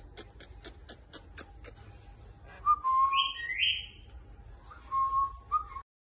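A run of quick clicks, about four a second, then a loud burst of whistling about a second long: a steady note with a higher, shrill note over it. A shorter whistle follows near the end.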